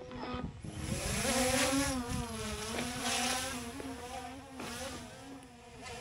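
DJI Mini 3 Pro drone's propellers buzzing as it lifts off from a hand launch, the pitch wavering up and down as the motors adjust.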